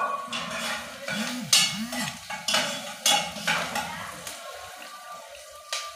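A metal spoon stirring and scraping in an aluminium pot of frying onions, with strokes about twice a second over a sizzle. The strokes fade out after about four seconds.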